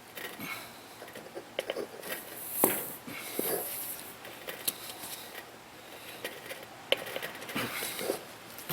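Irregular scraping, rubbing and clicking of a T-handle tire plug insertion tool being worked into a hole in a lawn tractor tire's sidewall, with a louder scrape about two and a half seconds in and a sharp click about seven seconds in.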